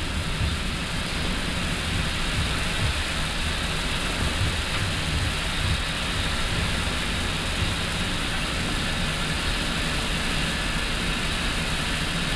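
Steady flight-deck noise of an Airbus A350-900 on the ground: a constant hiss of air-conditioning airflow over a low, uneven rumble from the idling engines and the aircraft rolling on the taxiway.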